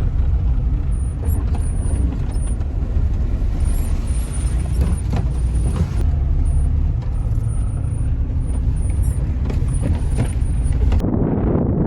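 Old Tata Safari 4x4 driving off-road: a steady low engine and drivetrain rumble with scattered knocks and rattles. The sound changes abruptly near the end.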